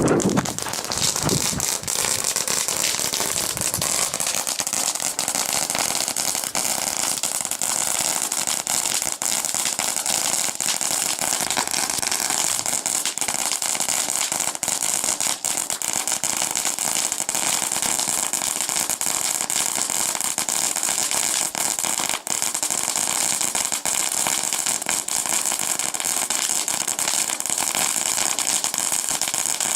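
Four Memory Storm fireworks joined together, burning with a continuous hiss and dense crackling that stays steady throughout.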